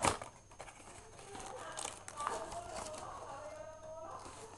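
Packaging of a boxed kit being handled: a sharp knock right at the start, then faint rustling and light tapping of cardboard and plastic.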